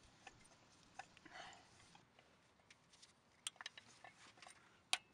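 Near silence broken by a few faint, sharp clicks of a small hex key working the 3 mm Allen screws on a distributor rotor. The sharpest click comes near the end.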